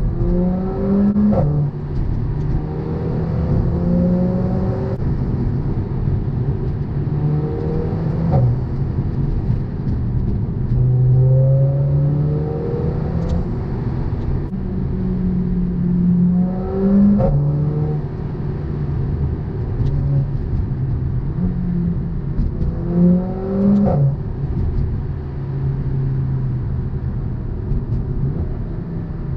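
Mercedes-AMG A45's turbocharged four-cylinder engine on a decat exhaust, pulling hard through the gears. The pitch climbs and drops back at each upshift, several times over, with a short sharp crack at some of the shifts.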